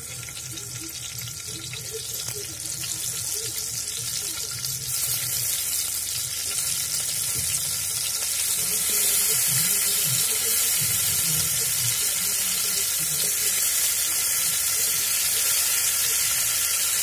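Hot oil in a kadhai sizzling as whole stuffed small round brinjals are set into it one after another, the sizzle growing louder over the first half as the pan fills, then holding steady.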